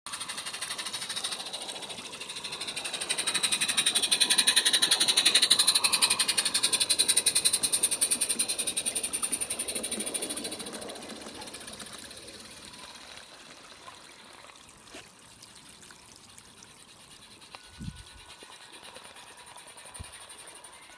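A model train on a garden railway running past close by, its wheels rattling in a fast, even rhythm on the track. It grows louder over the first few seconds and fades away after about ten seconds, leaving a few faint clicks.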